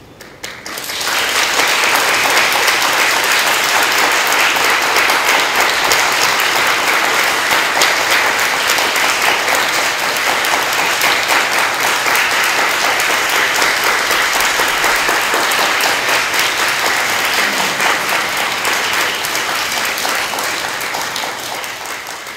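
Audience applauding: a dense patter of many hands that starts abruptly about a second in, holds steady and loud, and fades out near the end.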